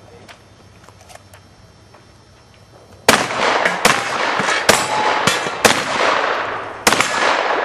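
Shotgun firing 00 buckshot: a rapid string of about five loud shots, starting about three seconds in, each echoing into the next.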